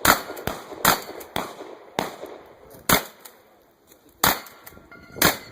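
A string of about six shotgun shots, roughly a second apart, from a Winchester 1300 pump-action shotgun fired in quick succession, with lighter clicks between them.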